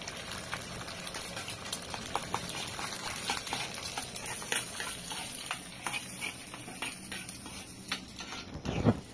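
Eggs frying in a pan, sizzling, while a metal spoon stirs and scrapes in the pan with scattered light clicks. Just before the end a short, louder low sound breaks in.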